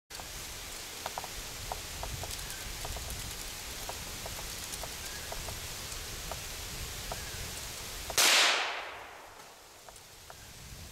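A single rifle shot about eight seconds in, sharp and loud, trailing off over about a second, over a steady rustling background of woods.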